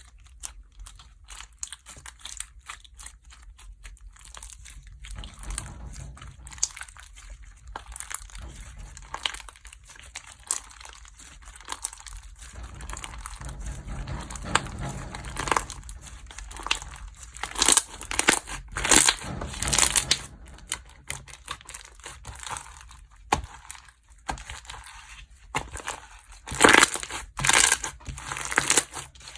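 Slime being squished, stretched and pressed by hand, giving a run of sticky crackles, clicks and small pops. The crackling comes in denser, louder spells about two thirds of the way through and again near the end.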